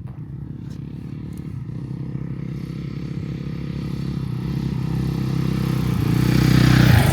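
Motorcycle engine on a trail, approaching and getting steadily louder, loudest as it passes near the end.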